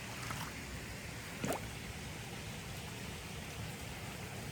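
Steady rush of water flowing in a stream. One brief sharp sound comes about a second and a half in.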